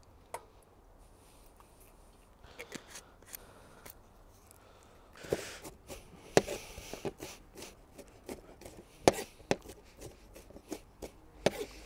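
Chef's knife finely chopping a yellow onion on a plastic cutting board: an irregular run of knocks as the blade rocks and taps the board, starting about two seconds in.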